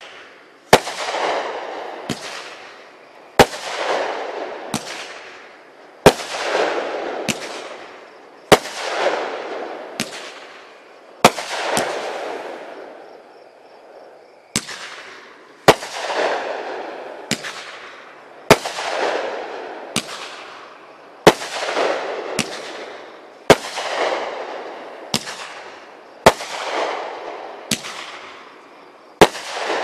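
Consumer fireworks cake ('Exploding Concussion') firing shot after shot, about a dozen sharp bangs spaced two and a half to three seconds apart. Each bang is followed by a hissing rush that fades, with a lighter pop between the bangs. There is a short lull about halfway through.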